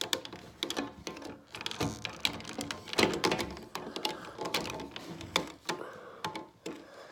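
Hard plastic toy parts of a Megazord clicking and knocking as they are handled and fitted together, in a string of irregular small clicks.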